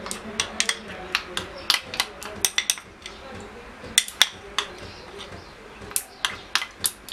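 Metal spoon clinking and tapping irregularly against a small stainless steel saucepan as thick honey is scraped into it.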